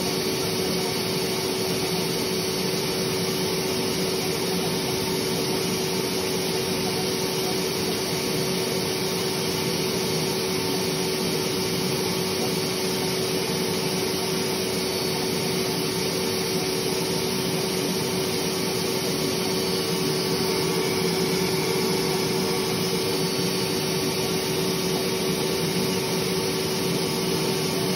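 National canister vacuum cleaner running steadily, a constant rushing noise with a steady hum through it, used to catch loose down while a down jacket is opened up.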